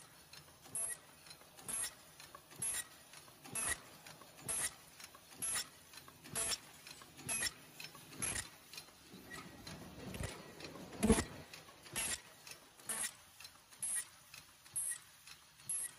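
Paper cup forming machine running, its mechanism clacking in a steady beat of about one stroke a second, with one louder knock about eleven seconds in.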